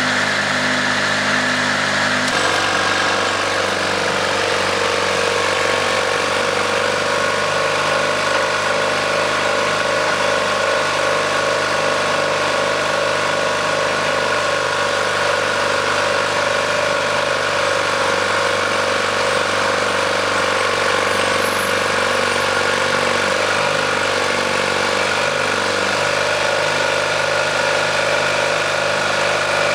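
Small crawler dozer's engine running steadily as it works a boom, its tone changing abruptly about two seconds in.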